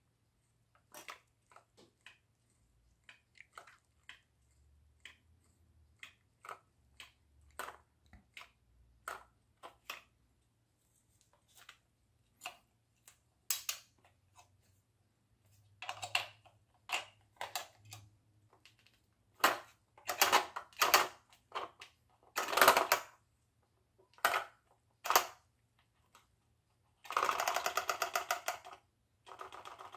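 Light plastic clicks and knocks as the model boat's flapper mechanism is handled and adjusted. Near the end the small electric motor starts and the magnet-driven plastic flapper mechanism gives a fast, even rattling buzz for a couple of seconds.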